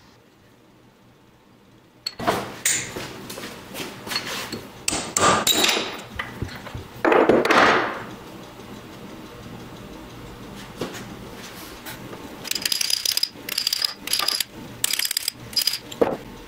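Hand tools working metal: a string of knocks and taps, a louder scraping stroke lasting about a second some seven seconds in, and near the end a run of short, high-pitched bursts.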